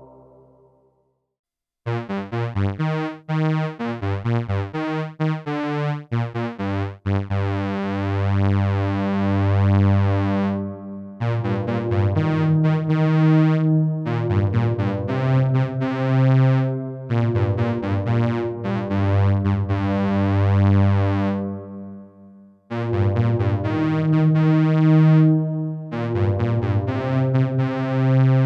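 Synthesizer playing a sequence of chords and bass notes through a Donner Vintaverb stereo reverb pedal set to its plate algorithm. The chords start after about two seconds of silence; some are short and some held, and several stop abruptly.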